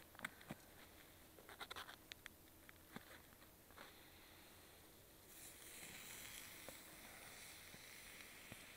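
Faint clicks and scraping of steel tongs and a plastic meat package being handled, then from about five seconds in a steady, faint hiss of beef burger patties sizzling in a pan over an open fire.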